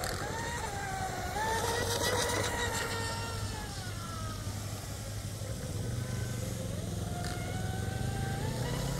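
Electric motor of a Tenshock F1 tunnel-hull RC boat whining at speed across the water. Its pitch drifts up and down with throttle and distance, then climbs steadily over the last few seconds.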